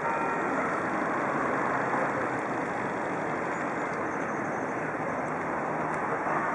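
Steady, even motor-traffic noise, with no single engine standing out and no sudden sounds.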